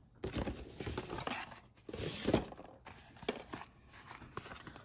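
A small cardboard blind box being handled and pulled from its case: irregular scraping, rustling and light tapping of cardboard, in several short clusters.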